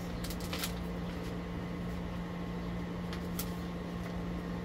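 A few short crinkles of a plastic candy wrapper being opened, a couple near the start and one about three seconds in, over a steady low hum.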